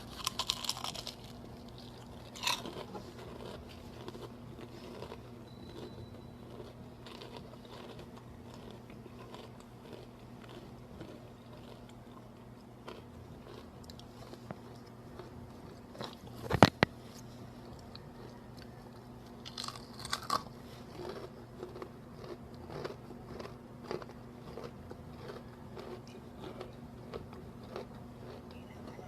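Close-up bites into crunchy flour-coated fried chicken, with crisp crunching followed by chewing and small crackles. There are bursts of crunching near the start and again about two-thirds of the way in, with one sharp, loud crunch a little past the middle.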